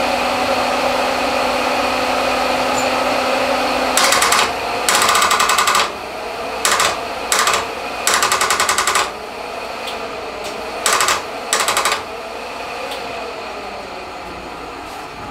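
The starter circuit chattering: about seven short bursts of rapid clicking between about four and twelve seconds in as the key is held to start, the engine not cranking because the battery is dead. A steady electric-fan hum runs underneath, with a held tone that stops about four seconds in.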